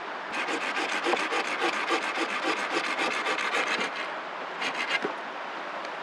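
A blade working a wooden stick: rapid rasping back-and-forth strokes for about four seconds, then a short second run of strokes about a second later.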